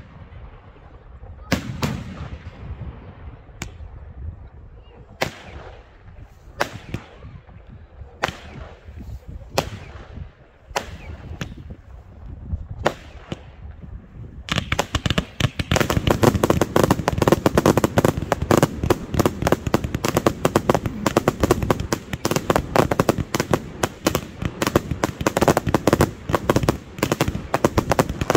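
Fireworks display: separate bangs every second or two, each trailing off. About halfway through, this gives way to a louder, dense, continuous rapid crackle of many small reports.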